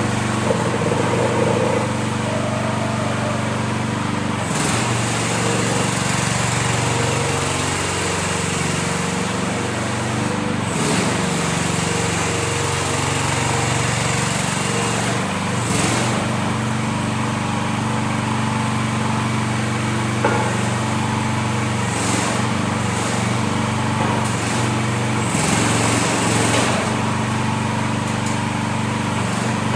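New Future FT15 mini excavator's engine running steadily, its note shifting for several seconds in the first half, with a few brief clatters.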